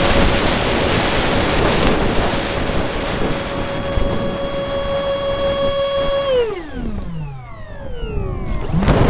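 Electric ducted-fan motor of an RC A-10 jet whining steadily at high throttle, then spooling down sharply about six seconds in and spooling back up near the end. Heavy wind buffeting the microphone throughout.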